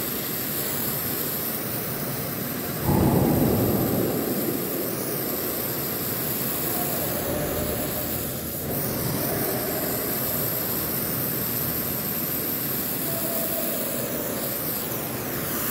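Oxy-fuel torch flame hissing steadily while heating a copper P-trap joint for brazing, with a brief louder rush about three seconds in.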